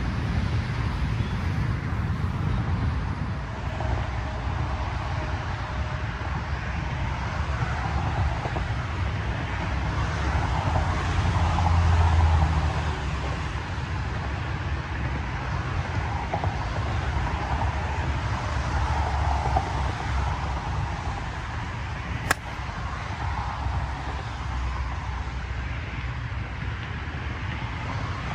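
Wind buffeting the microphone over a steady hum of distant road traffic, with a stronger gust about eleven seconds in. One sharp click about two-thirds of the way through.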